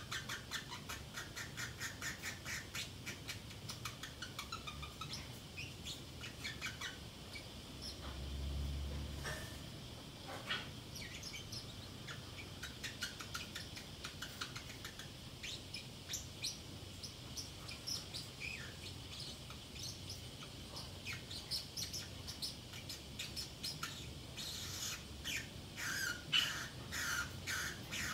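Pacific parrotlet chattering quietly to itself: runs of quick clicking chirps, scattered short chirps, and a louder burst of rapid chirps near the end. A brief low rumble comes about a third of the way through.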